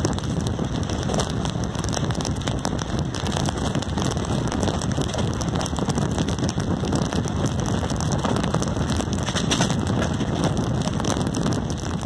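Wind rushing over the microphone from a moving passenger train, with the train's running noise underneath: a steady, loud rush full of fine crackling.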